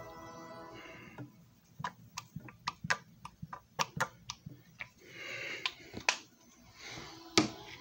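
Irregular sharp clicks and taps, about three a second, from handling the plastic parts and yellow buffing pad of a JFJ Easy Pro disc repair machine, with a short rushing noise about five seconds in and a louder click near the end.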